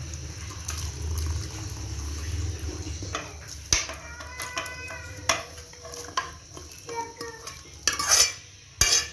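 A metal spoon knocking, scraping and clinking against metal cookware as cooked mutton is moved from the pressure cooker into a karahi. Some clinks ring briefly, and the loudest knocks come near the end.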